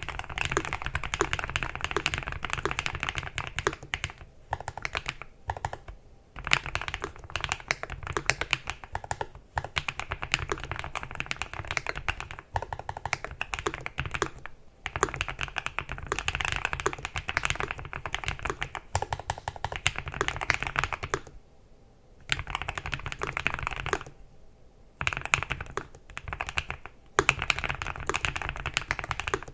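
Typing on a Lofree Flow 2 low-profile mechanical keyboard: quick runs of key clicks broken by short pauses.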